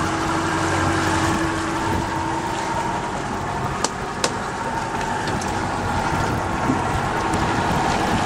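Boat engine running steadily with wind and water noise, a low even hum under a hiss. Two short clicks about four seconds in.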